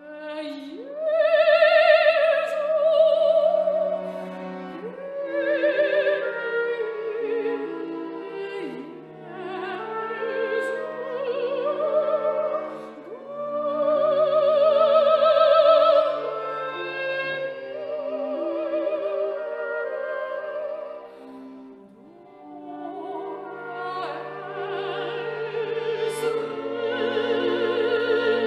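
Classical operatic singing: a voice holding long notes with wide vibrato in several phrases, over a sustained instrumental accompaniment.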